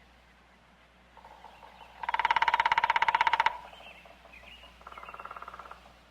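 Woodpecker drumming on wood: one loud, rapid roll of knocks lasting about a second and a half, then a second, fainter and shorter roll about a second later. Faint bird chirps can be heard around them.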